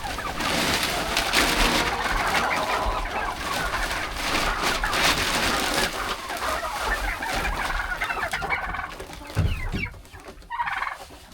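A flock of chickens and turkeys clucking and calling over one another. A dull thump comes about nine and a half seconds in, followed by a single call.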